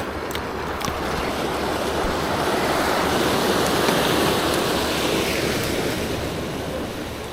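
Ocean surf washing against the shore rocks: one wave surge that swells to a peak about midway and then subsides.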